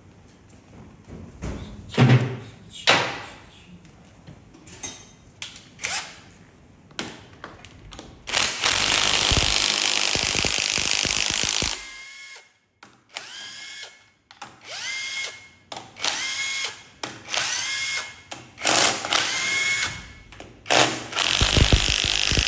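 A power tool at work on a truck gearbox being taken apart. There are a few sharp metal knocks early on, then one long steady run lasting about four seconds, then a string of short bursts, each starting with a rising whine as the motor spins up.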